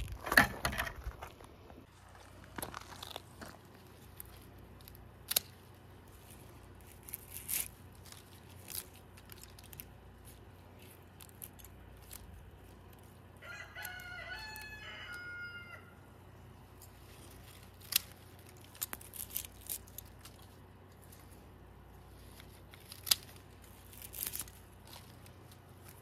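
A rooster crows once, about halfway through, a call lasting about two seconds. Scattered sharp clicks and rustles sound close by before and after it.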